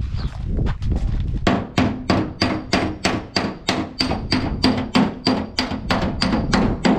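A hammer beating the sheet-metal panel of a truck cab. After about a second and a half of fainter, irregular knocks, it settles into an even run of ringing metal blows, about three to four a second.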